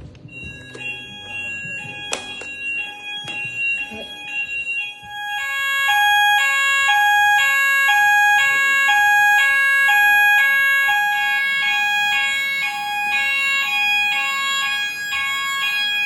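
Apollo-protocol fire alarm sounder bases sounding during an alarm test. A steady high tone runs under two lower tones that alternate about once a second. The alarm becomes much louder about five seconds in.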